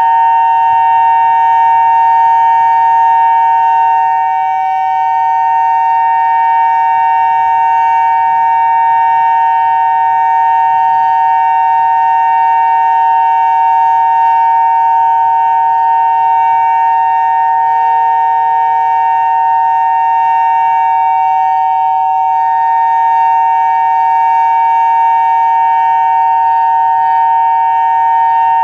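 Federal Signal Modulator 5020 outdoor warning siren sounding a steady two-tone alert. Its pitch holds level with no rise or fall, and the loudness dips slightly once or twice.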